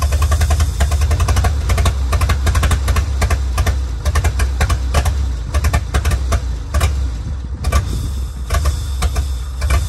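The engine of a 1935 International C-30 truck running, with a strong low hum and a rapid, uneven clatter of clicks over it.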